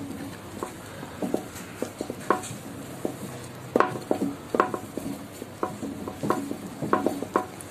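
A spatula spreading whipped cream over a cake inside a steel cake ring, with irregular light clicks and knocks as it scrapes and taps against the metal.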